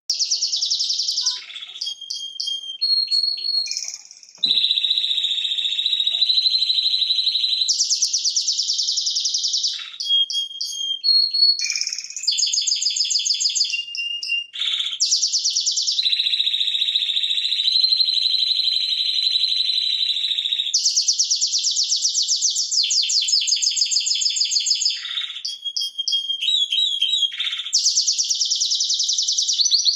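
Spanish Timbrado canary singing: long, rapid, metallic rolling trills lasting several seconds each, alternating with short runs of sharper separate notes, one phrase straight after another.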